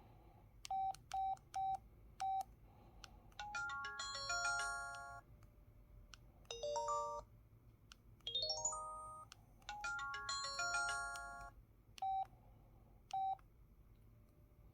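Curitel PH-L4000V mobile phone playing short synthesized effect-sound jingles, four quick melodic runs of stepped notes, one of them rising. Single key-press beeps at one pitch come before them and twice more near the end.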